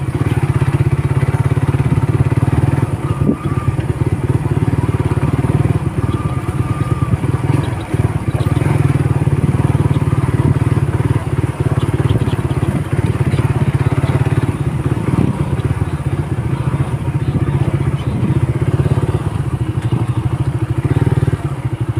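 Small motorcycle's engine running steadily under way on a rough dirt road, with a fast low pulsing that eases briefly a couple of times.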